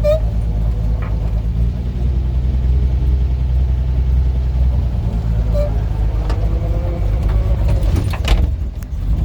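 1949 Rover P3 engine running steadily while the car is driven. Near the end there is a click and the engine note drops briefly before picking up again.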